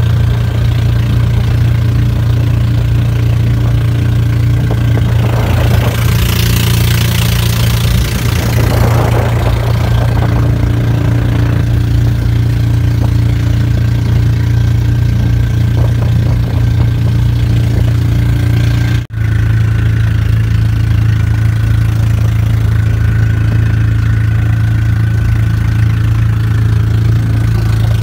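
Small fishing boat's engine running steadily at idle, a constant low drone. A rushing noise rises over it for a few seconds about six seconds in.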